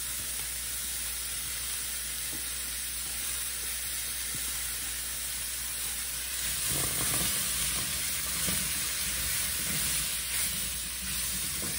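Turnip chunks and leeks frying in a stainless steel skillet, with a steady sizzle. A spatula scrapes the last pieces in from a metal bowl, and from about halfway it stirs and scrapes across the pan.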